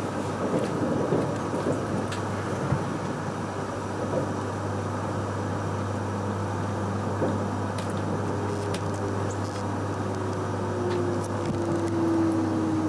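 Joetsu Shinkansen 200-series train running: a steady rushing noise with a low hum, and a tone that slowly falls in pitch over the last few seconds.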